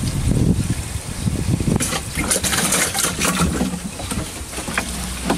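Water pouring from a watering can down the corrugated fill tube of a wicking-bed barrel, filling its reservoir. The rush of water is strongest in the middle, with a couple of short clicks near the end.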